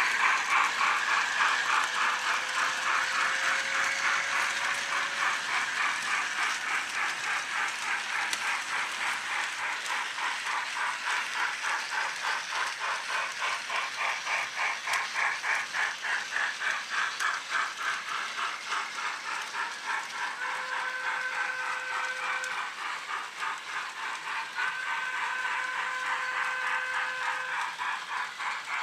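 Model steam locomotive's sound decoder chuffing steadily with hiss as it runs, with the rattle of the model train on the track. Two held tones, each about two seconds long, sound in the last third.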